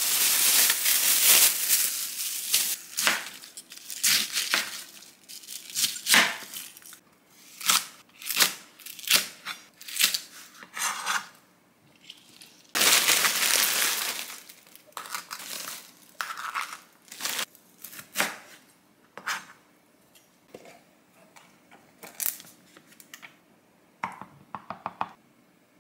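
Plastic bag crinkling loudly as a cabbage is bagged, then a knife chopping green onion on a plastic cutting board in short strokes. Near the end a spatula scrapes thick gochujang into a plastic tub.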